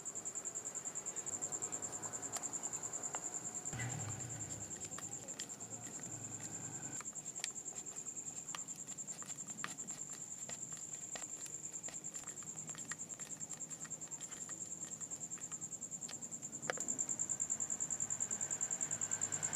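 An insect, likely a cricket, trilling steadily: a high, fast-pulsing tone that fades a little in the middle and comes back strongly near the end. Scattered light clicks and taps sound over it, with a low knock about four seconds in.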